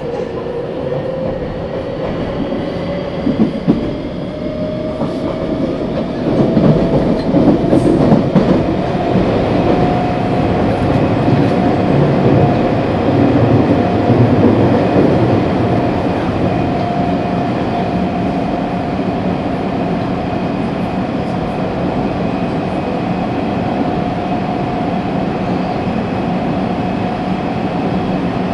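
Tsurumai Line 3050 series subway train running, heard on board: the traction motors' whine rises in pitch as the train accelerates over the first ten seconds or so, then holds steady while the wheels rumble on the rails. A couple of sharp knocks come a few seconds in.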